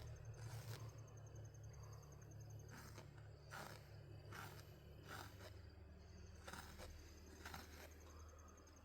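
Near silence: room tone with a steady low hum, faint soft rustles or handling noises every second or so, and a faint, high, rapid ticking that fades in and out.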